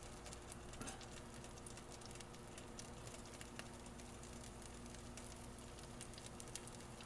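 Faint, fine crackling sizzle of chopped onions starting to cook in a skillet as the pan heats up.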